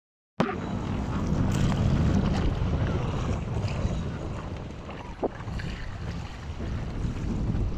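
Wind buffeting the microphone over choppy lake water around a small wooden boat, a steady rushing noise. It follows a brief dropout right at the start.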